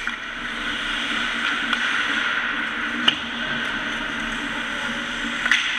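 Ice hockey play in an arena: a steady hiss of rink noise with sharp clacks of sticks and puck, one about three seconds in and another near the end.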